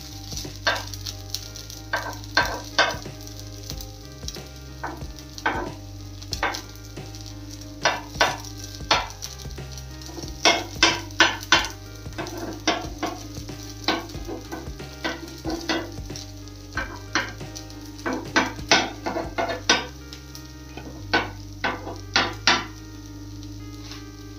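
Wheat-flour snack sizzling in an oiled pan over a low flame, with runs of sharp clinks and scrapes of a spoon or spatula on metal.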